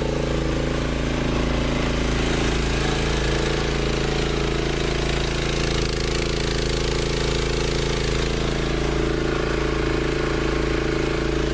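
Gas-powered air compressor running steadily, its small gasoline engine and pump giving an even, repeating chug.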